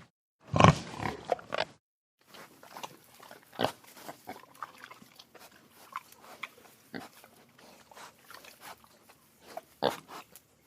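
An animal sound effect: one loud call about half a second in, then a long, quieter run of irregular short sounds and clicks, with a louder pair near the end.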